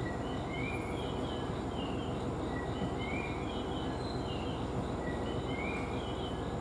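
Low steady rumble of a JR East 701 series electric train approaching slowly at low speed, with short high chirps repeating in phrases about every two and a half seconds.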